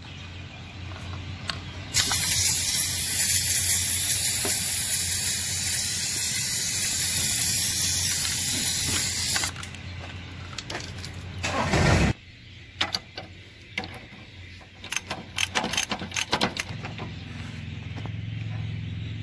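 A loud steady hiss that starts suddenly about two seconds in and cuts off after about seven seconds, then a brief louder swell and a run of sharp clicks and knocks of tools on metal. A low hum runs underneath.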